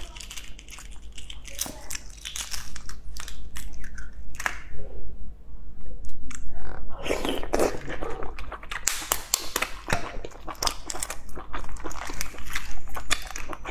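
Brown eggshells on boiled eggs being cracked and picked off by hand: a close, dense run of small sharp crackles as the shell pieces break and peel away.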